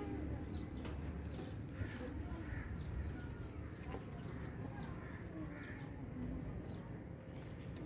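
Small birds chirping in short, high notes again and again over a steady low background hum, with a couple of light clicks.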